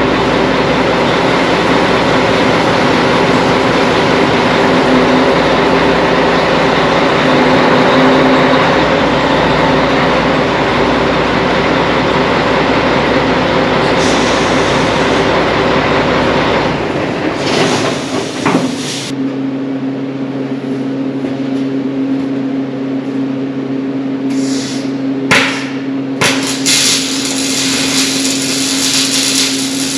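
Steady crackling hiss of welding over a machine hum for about the first seventeen seconds. Then a steady motor hum with a couple of sharp knocks near the end.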